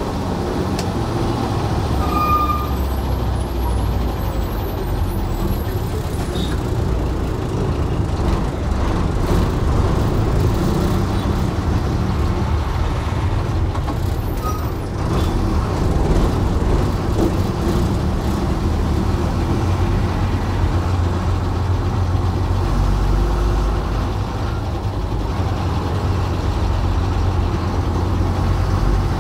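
Cabin noise of a moving KSRTC deluxe air bus: a steady low engine and road rumble.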